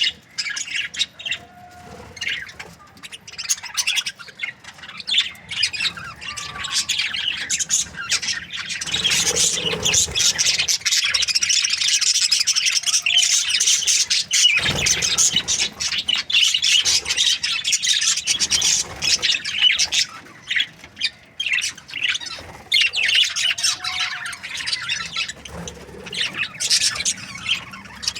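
Budgerigar chatter: a fast, continuous stream of short high chirps and squawks, busiest in the middle stretch.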